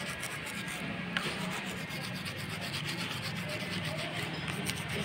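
Teeth being brushed with a manual toothbrush: a steady scratchy scrubbing of bristles against the teeth in quick back-and-forth strokes.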